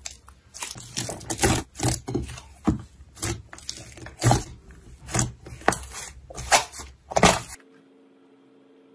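Slime being squeezed and pressed by hand, giving a run of loud, sharp pops and crackles roughly one or two a second. They cut off suddenly about seven and a half seconds in, leaving a faint steady hum.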